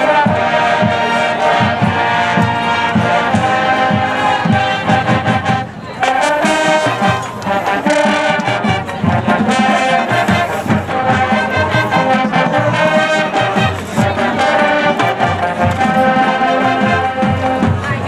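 High school marching band playing: the brass section carries the tune over a steady drum beat, with a brief break about six seconds in.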